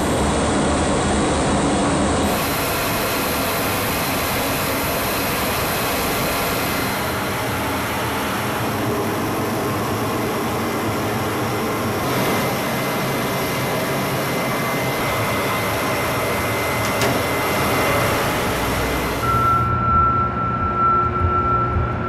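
Steady jet engine noise from aircraft running on a flight line: an even rushing noise with a faint high whine. Near the end it gives way to a lower hum with one steady high tone.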